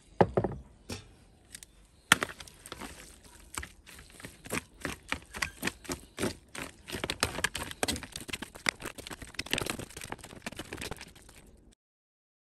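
Metal tongs clicking and scraping against a plastic tray as they toss pulled pork to mix in barbecue sauce, a quick irregular run of clicks with soft squelches. A single thump comes at the very start, and the sound cuts off suddenly near the end.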